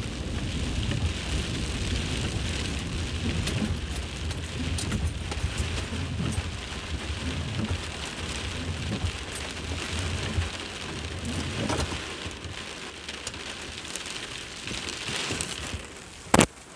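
Very heavy rain pouring down: a dense hiss with many drops clicking close to the microphone. A low rumble under it fades away about two-thirds of the way through, and there is one sharp knock near the end.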